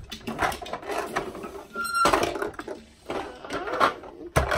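Small toy cars being handled on a tabletop: clicking, scraping and rattling as they are pushed and set down, with a sharp knock near the end.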